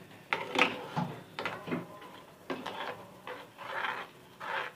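A utensil stirring and scraping a thick chutney paste in a cooking pan: irregular scrapes and light knocks as the sauce cooks down.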